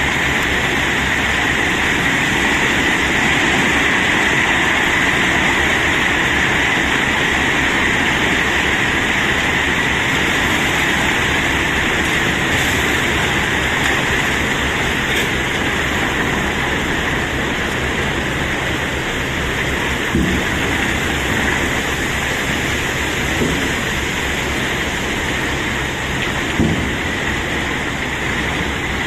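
Cobblestones pouring off a load in a steady stream, with a few louder single knocks in the last ten seconds.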